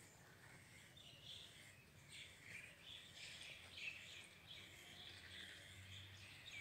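Faint birds chirping, many short overlapping chirps without pause, over low outdoor background noise.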